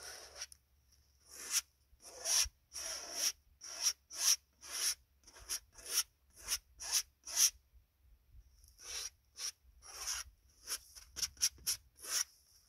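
Oil paint being scrubbed onto a large canvas in short strokes, about two a second, with a pause of about a second a little past the middle.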